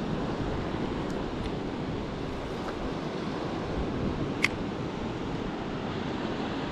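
Steady wash of sea surf, with wind noise on the microphone and a single sharp click about four seconds in.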